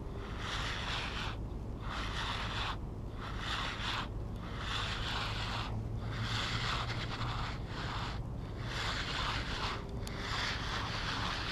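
Clothing rubbing and scraping against a chest-mounted camera in repeated swishing swells every second or two, over a steady low rumble.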